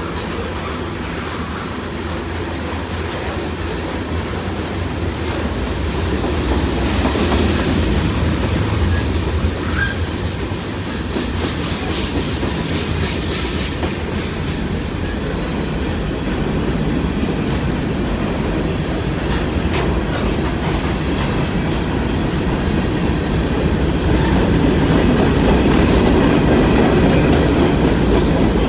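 Long CN freight train's cars rolling past in a steady rumble, wheels clicking over rail joints.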